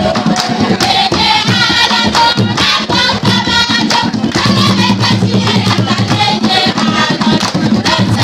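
Ghanaian traditional drum ensemble playing a fast, steady rhythm on several hand drums, with a group of voices singing over it.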